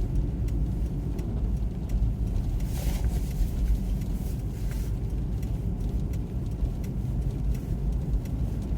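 Steady low rumble of a car's engine and tyres heard from inside the cabin while driving slowly on a snow-covered road, with faint ticks throughout and a brief hiss about three seconds in.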